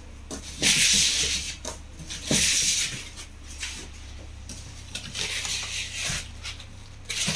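Rustling and rubbing of foam packing sheets and plastic-wrapped parts being handled in a cardboard box, in several short bursts with a few light knocks.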